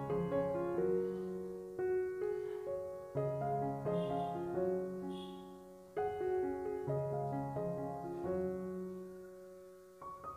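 Background piano music: notes and chords struck and left to fade, in phrases that begin again every few seconds.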